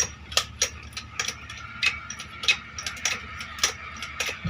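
Sharp irregular clicks and taps, several a second, over a low steady hum.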